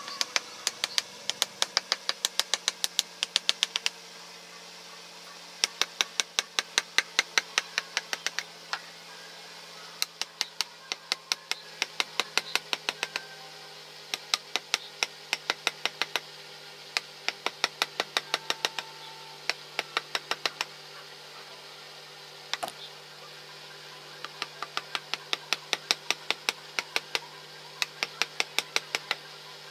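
Wooden mallet striking a wood-carving chisel driven into a block of wood: quick, sharp knocks about five a second, in runs of a few seconds broken by short pauses.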